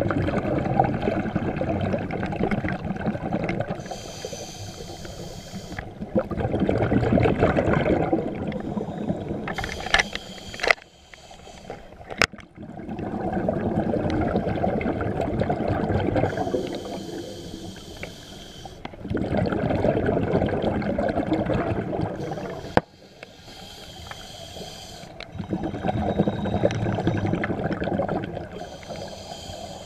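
Scuba diver's regulator breathing heard underwater: a hissing inhale, then a longer rush of bubbling exhale, repeating slowly about every six seconds, five breaths in all. A few sharp clicks fall between breaths.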